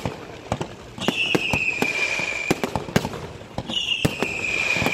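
Fireworks display: sharp bangs of bursting shells, two or three a second. Twice a high hiss slides slightly down in pitch and lasts over a second.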